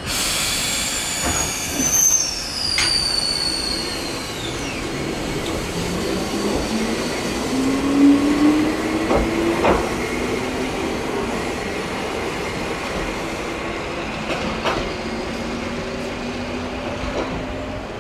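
Eizan Electric Railway 700 series electric railcar running on the line. A high-pitched wheel squeal glides down in pitch over the first few seconds, then the motor whine rises as the car picks up speed and holds steady. A few clacks of the wheels over rail joints are heard along the way.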